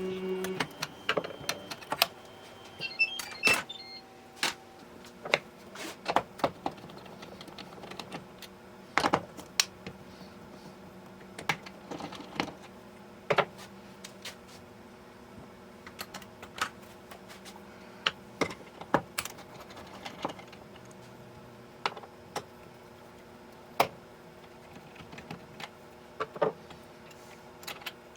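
Irregular sharp clicks and light knocks of small hard parts and tools being handled during pinball playfield disassembly, about one or two a second. A steady tone cuts off about half a second in.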